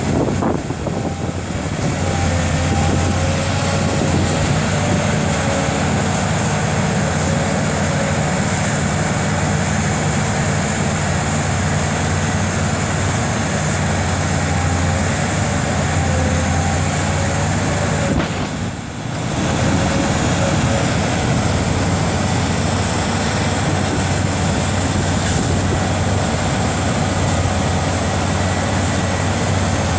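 Heavy diesel machinery running steadily: a wheeled excavator and a potato loading and cleaning machine with its elevator conveyor, as starch potatoes are loaded. There is a faint wavering whine over the low engine note, and the noise dips briefly about two-thirds of the way through.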